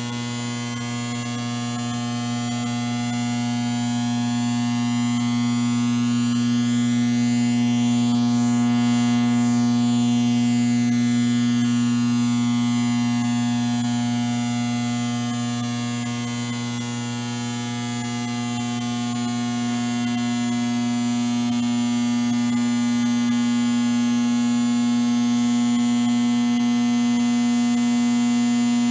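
Electrical hum sound effect: a steady buzzing hum with a strong low tone and many higher overtones, shimmering as if phasing in the highs. It swells gently in loudness and dips briefly about two-thirds of the way through.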